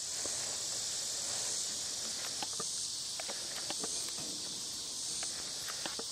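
Steady, high-pitched insect chorus, with scattered soft knocks and clicks from a ridden horse's hooves on dirt and its tack as it walks.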